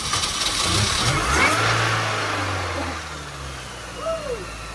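Supercharged Mini Cooper S engine running just after it finally fired from a crank-but-no-start fault: it revs up, then settles to a steadier idle.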